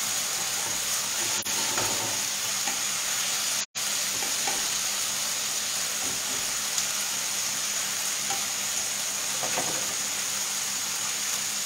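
Thinly sliced artichokes and fish fillets frying in oil in two pans, with a steady sizzle and light scrapes as the artichokes are stirred until crisp. The sound cuts out for an instant about four seconds in.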